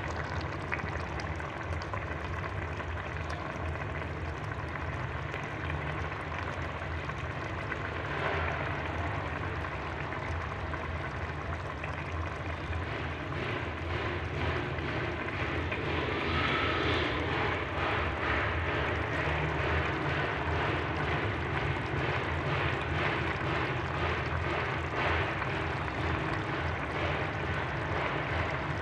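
Thick potato curry boiling in a large aluminium pot: fast, crackly bubbling over a steady low rumble, the bubbling getting busier about halfway through.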